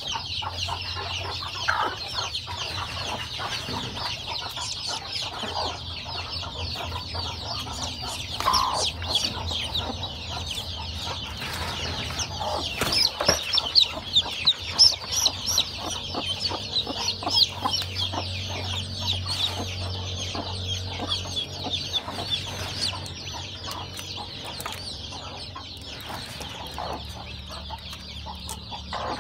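Newly hatched chicks peeping constantly, many high chirps overlapping, loudest about halfway through; the broody hen they hatched under gives a few low clucks.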